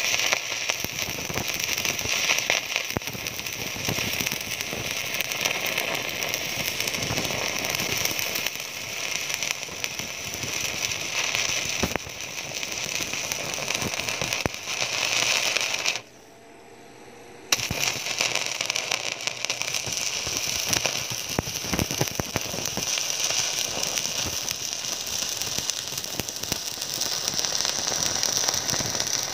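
Stick-welding arc from an inverter welding machine, crackling steadily as the rod burns. A little past halfway the arc breaks off for about a second and a half, then is struck again and crackles on.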